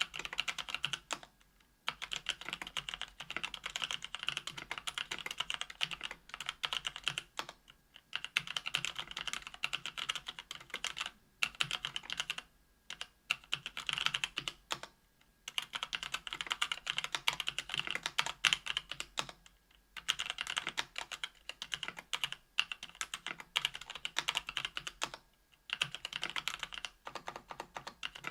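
Fast typing on a KBDfans Tofu 65% aluminium keyboard with stock, unlubed Kailh Pro Burgundy 50 g linear switches, an aluminium plate and GMK keycaps. Dense runs of keystrokes are broken by short pauses every few seconds.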